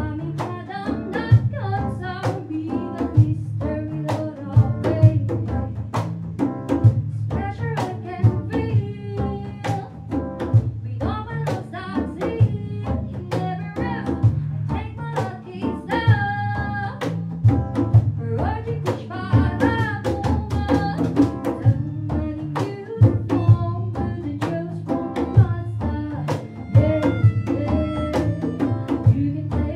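A live band plays a song: a woman sings lead into a microphone over hand drums, electric guitar, bass and a melodica, with a steady drum beat.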